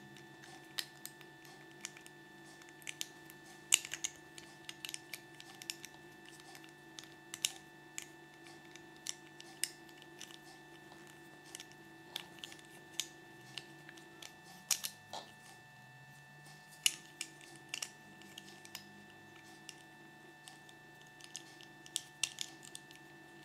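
Small hard-plastic Kinder Surprise toy figure handled by fingers: irregular light clicks and taps of plastic pieces and fingernails, over a faint steady hum.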